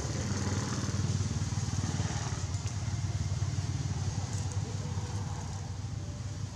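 An engine running steadily, a low even drone.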